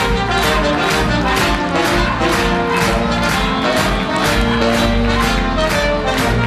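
Upbeat brass-led band music, trumpets and trombones over a steady beat, accompanying a circus act.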